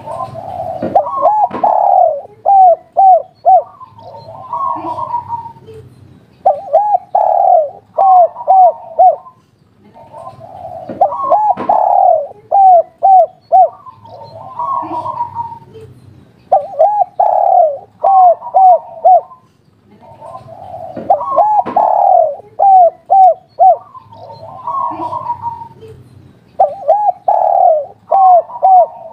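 Spotted dove (derkuku) cooing its 'kuk 3' song over and over, a phrase every few seconds. Each phrase is a drawn-out purring coo followed by a quick run of short clipped coos.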